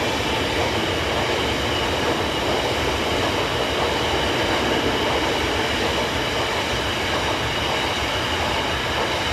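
Rake of loaded biomass hopper wagons on a freight train rolling past on the track, a steady rumble and rattle of wheels on rails.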